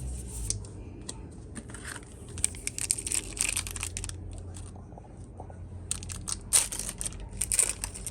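Foil booster-pack wrapper of a trading-card pack being torn open and crinkled, in two spells of crackling rustles, the second near the end the louder.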